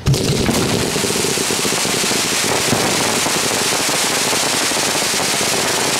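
Aerial fireworks with crackling stars: a dense, continuous crackle of many tiny pops that starts suddenly and holds steady.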